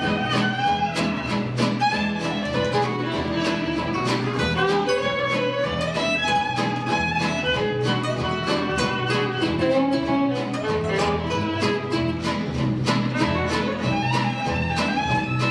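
A live string band playing: a violin carries the melody over three acoustic guitars strumming a steady beat and a plucked upright double bass.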